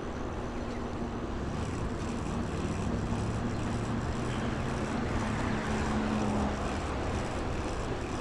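Steady wind and road rush while riding a bicycle, with a vehicle's low hum swelling from about two seconds in and fading near the end.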